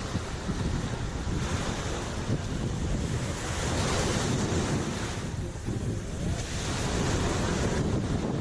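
Sea waves washing onto the shore, two swells of surf hiss rising and falling, over wind gusting across the microphone with a low rumble.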